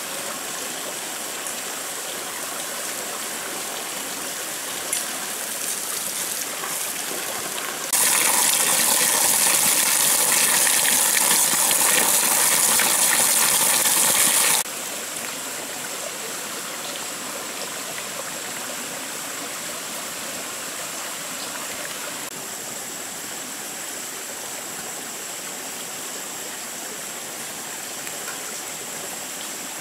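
Small stream running steadily over rocks. For about seven seconds in the middle, a much louder close splashing of water pouring from a spout onto a rock where a fish is being washed, which stops abruptly.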